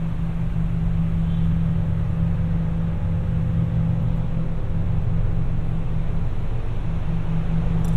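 Steady low droning hum of unexplained origin, the so-called strange sound from the sky, with no change in pitch and a faint background hiss over it.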